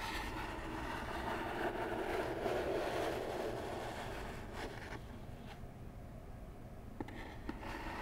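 Long acrylic fingernails slowly scratching across a cardboard box, a rough, deep scraping that fades about halfway through, followed by a few sharp nail taps on the box.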